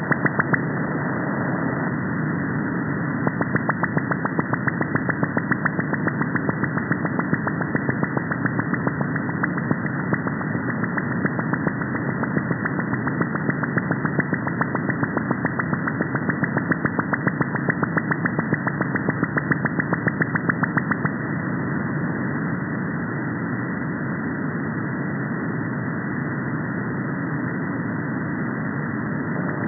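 Shortwave receiver hiss in upper sideband, cut off above about 2 kHz, with a fast, even train of radar pulses over it. The pulses are believed to come from an Australian over-the-horizon radar heard via the F2 layer. They stop about 21 s in, leaving only the hiss.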